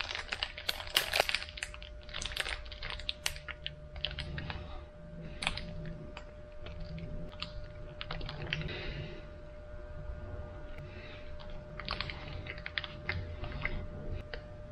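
A fig bar's plastic wrapper being torn open and crinkled, with quick sharp crackles for the first few seconds, then sparser crinkles and chewing as the bar is eaten.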